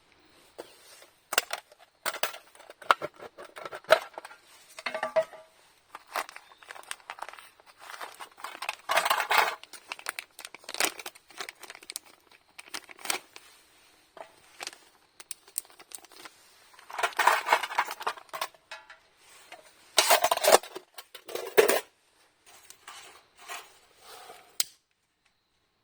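Irregular crinkling and rustling handling noises with sharp clicks and taps, in uneven bursts that stop abruptly near the end.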